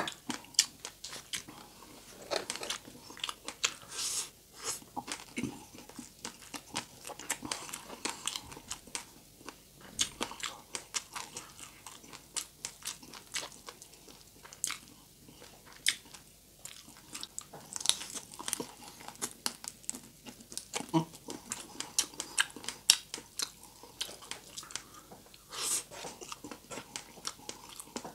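Close-up eating sounds of crispy deep-fried pork being bitten and chewed: a dense, irregular run of sharp crunches and crackles mixed with wet chewing.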